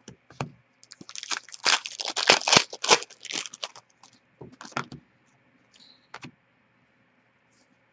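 Upper Deck hockey trading cards being handled and flipped through: a quick run of flicking and sliding card noises, then a few scattered clicks.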